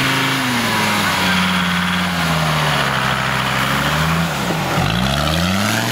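Modified off-road 4x4's engine running hard under load as it crawls through sand; the revs sag over the first couple of seconds, hold, then drop sharply about four and a half seconds in and climb again near the end.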